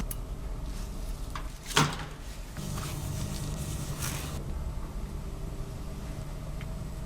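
A single sharp knock just under two seconds in, over a steady low hum, with a brief rustle about four seconds in.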